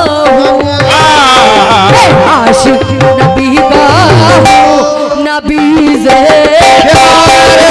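Live qawwali music: a held, wavering melody over a steady tabla rhythm.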